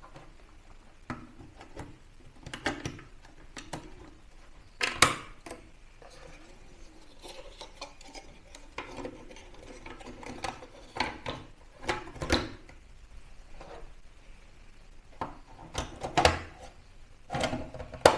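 Irregular clicks, knocks and light rattling of plastic and metal parts being handled, as the Dell OptiPlex 9020m micro PC is put back together. The sharpest knocks come about 5, 12 and 16 seconds in.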